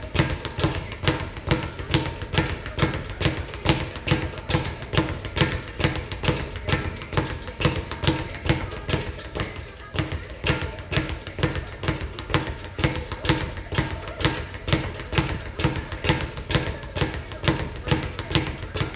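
Speed bag being punched in a fast, steady rhythm, the leather bag knocking against the wooden rebound platform again and again, over music.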